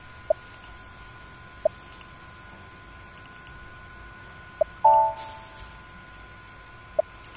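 Single mouse clicks every second or few. About five seconds in comes a short computer alert chime, the loudest sound, which dies away over about a second as a 'data locked' warning message pops up.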